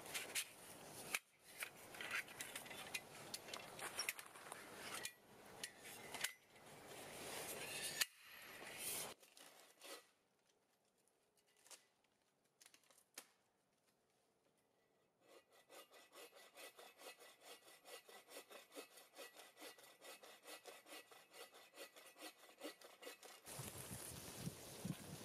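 A folding hand saw cutting a fallen ironwood trunk to length, in steady back-and-forth strokes about three a second for roughly eight seconds in the second half. Before it there is irregular rustling, then a few seconds of near quiet.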